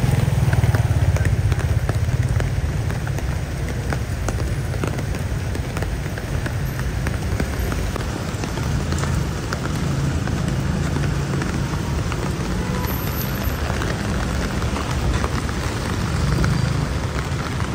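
Steady rain falling, with many small drop ticks over a continuous hiss and a low rumble underneath.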